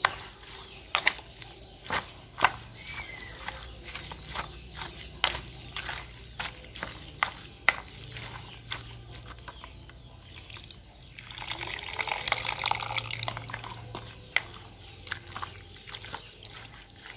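A plastic spoon stirring a wet mixture of shredded mushroom, carrot and ice water in a plastic bowl: irregular wet clicks and squelches, with a longer, louder stretch of sloshing and scraping about two-thirds of the way through.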